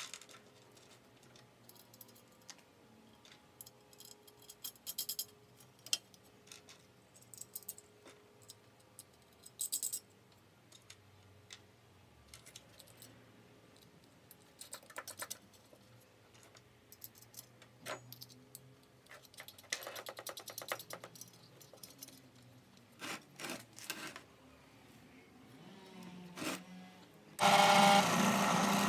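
Scattered clicks and clinks of small metal parts being handled and set down during assembly work. Near the end a power tool starts up and runs loudly.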